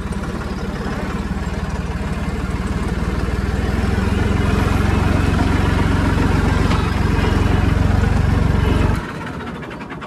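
Massey Ferguson tractor's diesel engine running steadily while the tractor is driven, growing louder about four seconds in. The sound drops away suddenly near the end.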